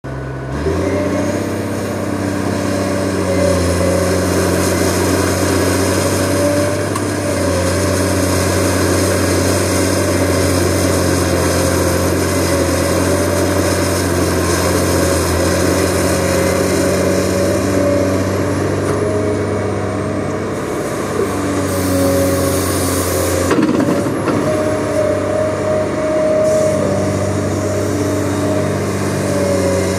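Heavy diesel engine of a loaded Caterpillar 775 off-highway dump truck running steadily under load on a quarry haul road, with a wavering whine above the low engine drone. The sound briefly breaks up about 23 seconds in, then carries on.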